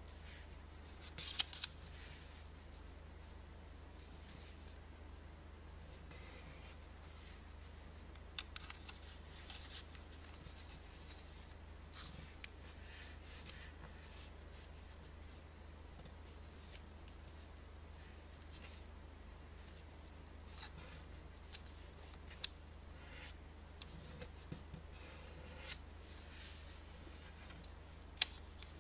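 A 2000-ruble paper banknote being folded and creased by hand: on-and-off papery rustling and fingertips scraping along the folds, with a few sharp crackles of the note, over a faint low hum.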